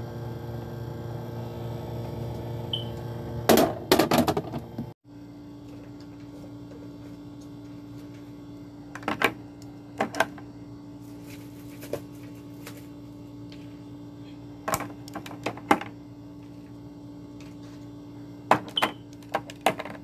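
Eggs being set one by one into a clear plastic egg container: scattered light clicks and taps of eggshell against plastic, a few at a time, over a steady hum. The hum cuts out briefly about five seconds in and comes back with a different tone.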